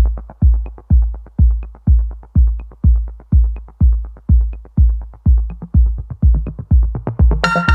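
Electronic background music: a heavy kick drum on a steady beat about twice a second, joined by a bright synth chord near the end.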